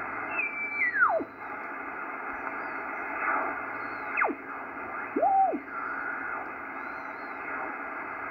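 Receiver audio from a Ten-Tec Corsair II HF transceiver being tuned down across the 40-metre band: steady band hiss, with carrier whistles gliding in pitch as the dial sweeps past stations. A long falling whistle comes about a second in, a quick falling one about four seconds in, and a short whistle that rises and falls soon after.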